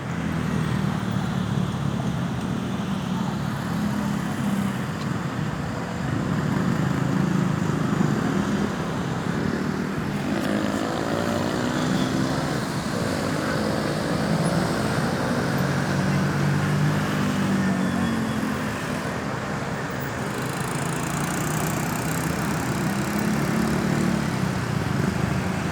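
Road traffic noise: vehicle engines running and tyres rolling at a steady level, with a brief faint pitched sound about ten seconds in.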